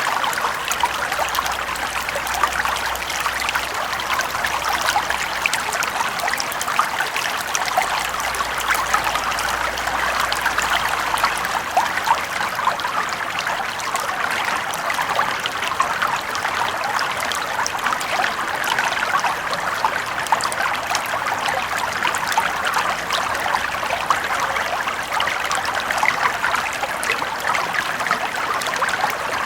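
A small brook flowing steadily, water rippling and trickling over stones with a constant dense babble.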